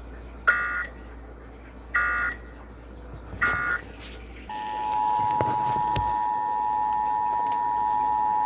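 Emergency Alert System data bursts: three short warbling digital bursts about a second and a half apart, the SAME end-of-message code closing the test broadcast. A little later comes the steady, dissonant two-tone EAS attention signal, about four and a half seconds long, which cuts off abruptly near the end.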